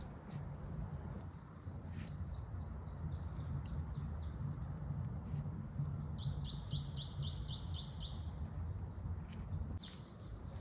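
A wild bird sings a rapid series of about ten high, downward-sweeping notes, about five a second, for two seconds beginning about six seconds in, over a steady low outdoor rumble.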